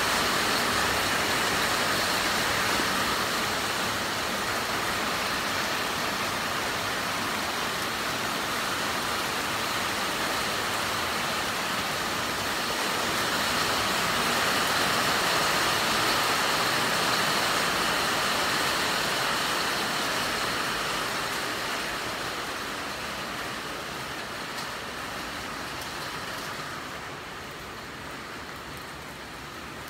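Rain falling steadily on garden foliage, an even hiss that grows fainter over the last several seconds.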